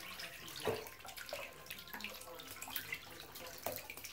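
Shallow bathtub water splashing and lapping as ducklings paddle and dabble in it, with many small, uneven splashes and plinking drips.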